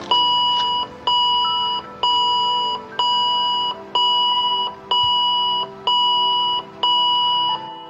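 Patient heart monitor beeping steadily, one long beep about once a second, eight in all.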